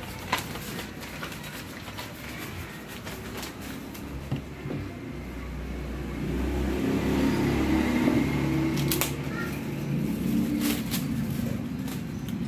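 Brown wrapping paper crackling as a takeaway portion is folded, then a plastic bag rustling as it is bagged. Under it a low motor rumble grows louder from about halfway through.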